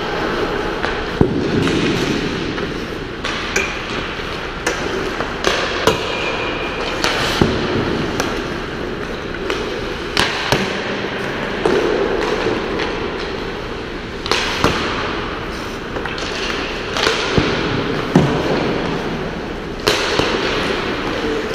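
Ice hockey practice: about a dozen sharp knocks at irregular intervals as sticks strike pucks and pucks hit the boards and glass. Under them runs a steady scraping noise of skates on the ice.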